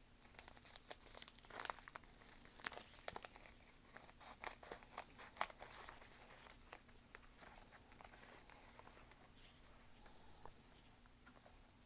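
Faint crinkling, rustling and tearing of a mailed package being cut and torn open, in irregular bursts that are busiest in the first half and thin out after about seven seconds.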